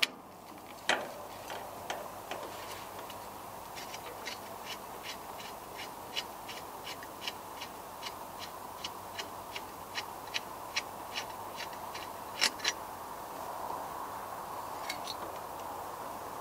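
Ratchet wrench clicking in an even rhythm, about two or three clicks a second, as a bolt is wound out, with a couple of louder clicks near the end.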